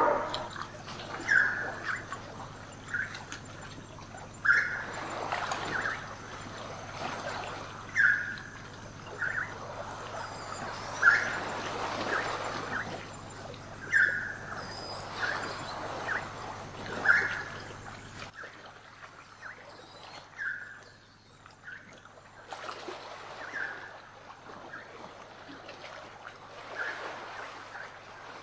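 Jungle-meets-ocean ambience: waves washing against a shore in slow swells, with a short, high creature call repeating every second or two.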